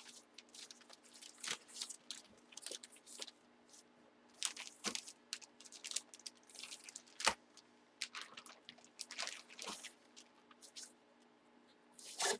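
Plastic packaging crinkling and rustling in irregular bursts as an item is unwrapped by hand, with a sharper click about seven seconds in.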